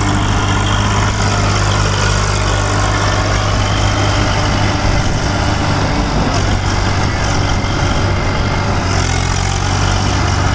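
Swaraj 744 FE tractor's three-cylinder diesel engine running steadily under load as the tractor works its way through deep mud.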